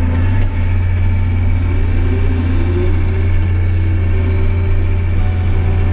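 Combine harvester's diesel engine running with a steady deep hum, a tone rising in pitch about two seconds in.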